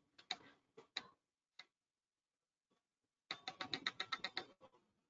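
Faint typing on a computer keyboard: a few scattered clicks, then a quick run of keystrokes about three seconds in.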